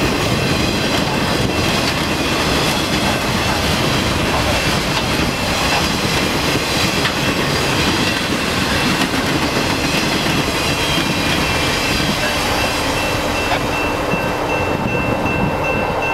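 Freight train of flat cars rolling past close by: a loud, steady rush of wheels on rail with clattering over the joints. A thin high ringing tone joins in the last few seconds.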